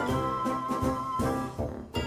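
Background music with brass, in a jazzy swing style, with a steady rhythmic pulse.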